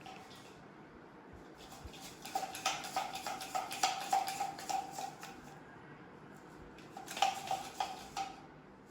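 Two bouts of rapid clinking, a metal utensil working against a metal bowl or pot, which rings under the strokes. The first bout starts about two seconds in and lasts about three seconds; the second comes near the end.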